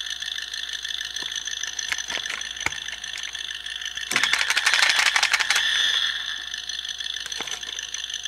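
Mattel Shake n' Go Ramone toy car being shaken, giving a rapid plastic ratcheting rattle about four seconds in, over a steady high-pitched electronic buzz. No proper voice or engine sound effects come out, which the owner puts down to a faulty speaker.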